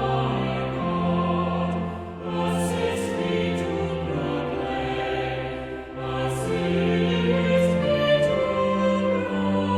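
Choral music: a choir singing a slow piece in long held notes.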